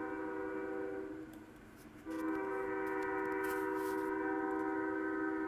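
Union Pacific locomotive's Nathan K5HL five-chime air horn sounding a held chord that stops about a second in, then after a short gap a second long blast that lasts to the end. Heard through a computer's speakers from a live webcam stream.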